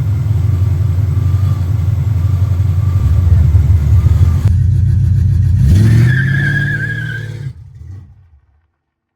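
Mopar 340 small-block V8 running steadily after a tune-up (distributor and carburettor adjusted). It is revved once about six seconds in, with a high whine rising with it, then the sound dies away to silence.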